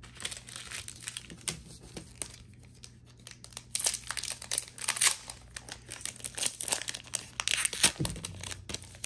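Foil wrapper of a Pokémon Sword and Shield booster pack being torn open and crinkled: a run of quick crackles, loudest about four to five seconds in and again near eight seconds.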